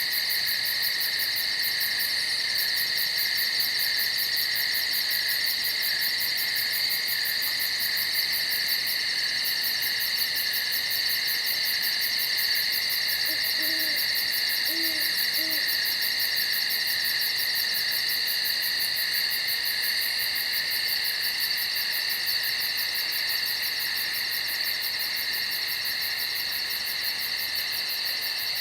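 A dense, steady chorus of insects trilling at night: high even drones with a fast pulsing buzz above them. About halfway through come three soft, low hoots.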